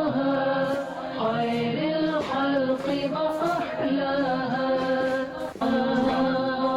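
Background vocal music: unaccompanied devotional singing in the style of a nasheed, with long held, chant-like notes.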